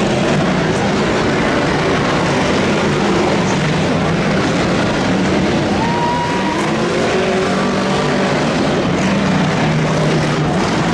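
Race car engines running at speed, a loud, steady din with engine tones that rise and fall.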